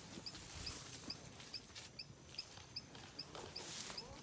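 Faint outdoor ambience with a small creature's high chirp repeating evenly, about two and a half times a second, over a light hiss of wind and rustling.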